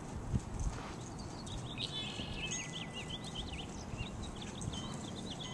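A small bird twittering in a quick run of short, high chirps, starting about a second and a half in, over steady low background noise.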